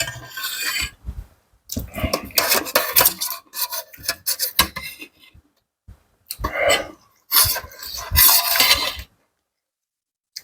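Cutlery clinking and scraping against a dish in several short flurries while eating a seafood salad, stopping about a second before the end.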